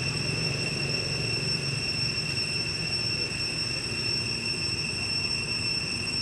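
A steady high-pitched whine that holds one pitch throughout, over a low rumble.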